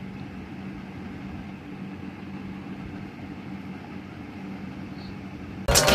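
Steady low machine hum of a running appliance or small motor; loud music cuts in just before the end.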